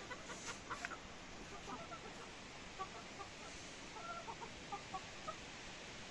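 Free-range hens clucking softly, short scattered clucks with one longer drawn-out call about four seconds in. A few sharp taps in the first second.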